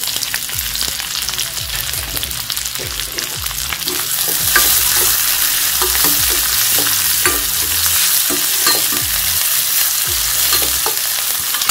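Sliced onion frying in butter and oil in a hot pan, sizzling steadily while being stirred, with scrapes and light knocks against the pan. The sizzle gets a little louder about four and a half seconds in.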